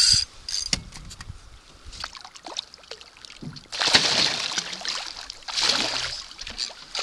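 A northern pike thrashing and splashing at the surface beside a canoe, in two bursts about four and five and a half seconds in. A brief fishing-reel buzz at the very start.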